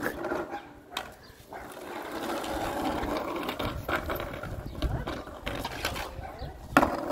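Skateboard wheels rolling and grinding over rough asphalt as a dog drags the board along in its mouth, with a few sharp knocks of the board.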